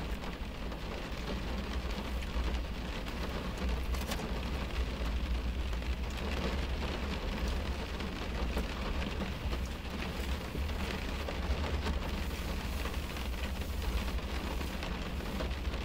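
Heavy rain falling on a car's roof and windows, heard from inside the cabin as a steady patter over a low rumble.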